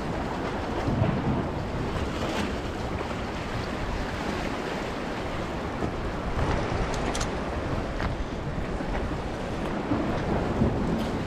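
Steady wind buffeting the microphone over the wash of water at a rocky inlet, with a few faint ticks.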